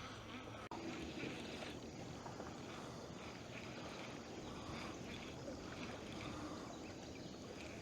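Faint, steady background noise of a boat sitting on open water, with a short cut-out a little under a second in.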